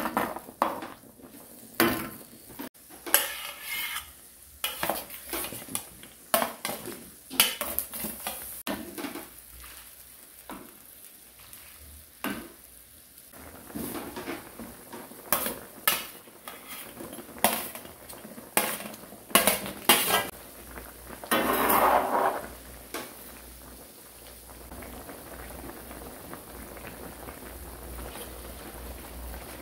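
Stainless ladle clanking and scraping against a cast-iron pot-lid griddle (sotttukkeong) as it stirs chicken pieces in boiling, sizzling broth, with repeated sharp knocks. Near the end the knocking stops and a steady bubbling hiss of the simmering pot remains.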